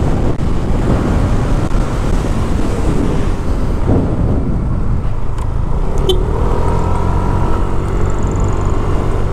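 Yamaha Mio Aerox scooter on the move, heard from the rider's microphone: steady wind rumble over the mic with the scooter's engine drone underneath, its engine note coming through more clearly in the second half. A couple of faint clicks sound near the middle.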